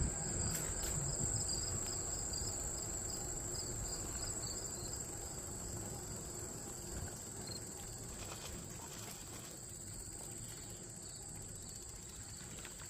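Steady high-pitched chorus of insects, with a faster pulsing chirp over it for the first few seconds.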